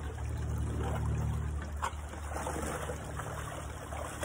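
Shallow creek water trickling over stones, with splashing steps of a person wading through it from about two seconds in, over a steady low rumble.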